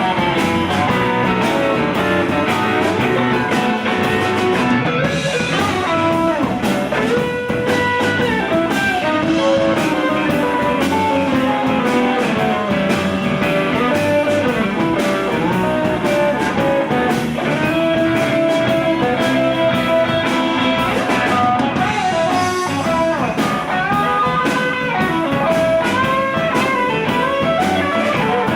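Live blues band playing an instrumental passage with no vocals: electric guitar plays lead lines with bent notes over the band's steady beat.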